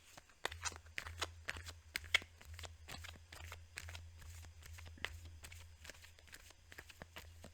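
Tarot cards being handled and shuffled: a quick, irregular run of soft card snaps and slides starting about half a second in, over a low steady hum.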